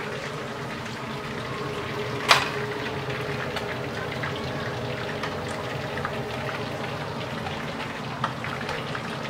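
Hot oil sizzling and bubbling steadily in two woks, with julienned ginger frying in one and a whole red snapper deep-frying in the other. A sharp clink comes about two seconds in.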